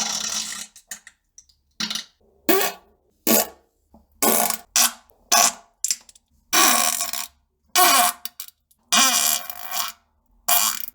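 A rapid string of about a dozen separate farts, each from a split second to about a second long with short silences between, raspy and some with a wavering pitch.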